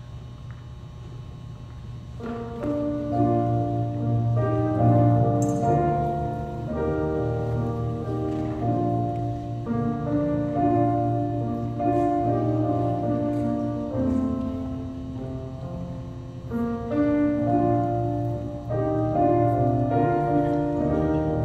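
Piano played on an electric stage keyboard, a slow piece of held chords and melody notes that comes in about two seconds in and carries on.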